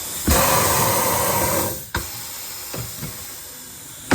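Tire changing machine at work on a wheel: a sudden burst of air hiss for about a second and a half, then a sharp clack, a smaller knock, and a loud thump near the end.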